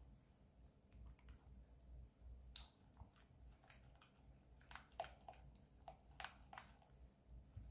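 Faint, soft wet clicks and scrapes of a silicone spatula stirring a thick, creamy batter in a glass bowl, irregular and spaced out, with a few slightly sharper ticks about five and six seconds in.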